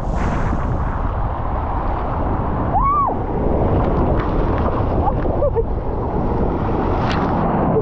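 Loud, steady rush of water and wind buffeting the microphone, as on a water-slide ride. A short high cry rises and falls about three seconds in.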